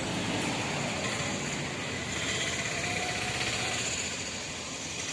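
Street traffic ambience: a steady hum of vehicle engines and road noise.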